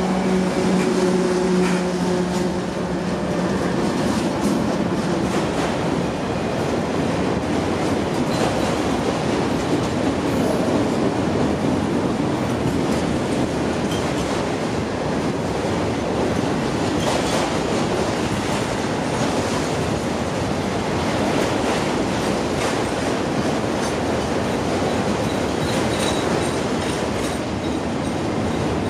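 Freight train passing close by: the diesel locomotive's engine drone fades in the first few seconds, then a long string of autorack cars rolls past with a steady rumble and clatter of wheels on the rails. A faint high wheel squeal comes near the end.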